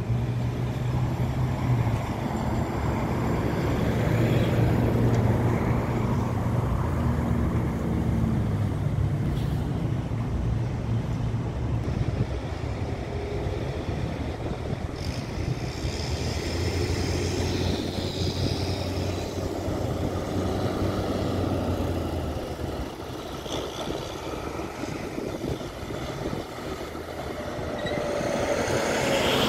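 Heavy diesel trucks running, a steady low engine drone. A high whine comes in for a few seconds around the middle, and a vehicle passes close near the end.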